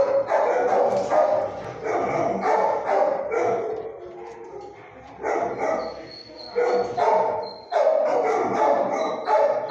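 Dogs barking in quick repeated runs, with a short lull near the middle.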